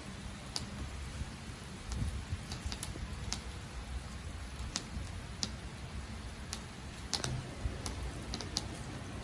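Light rain with scattered single drops ticking irregularly on a wet tabletop, over a steady low rumble.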